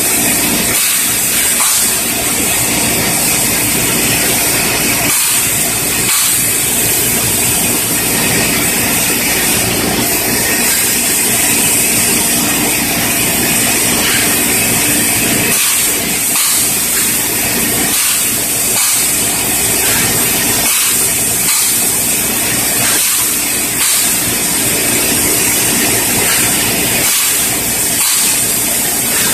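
Paint spray gun hissing loudly and steadily as paint is sprayed.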